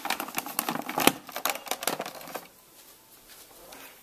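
Plastic clicks and rattles of a food processor lid being fitted and latched onto its clear bowl: a quick run of taps that stops about two and a half seconds in.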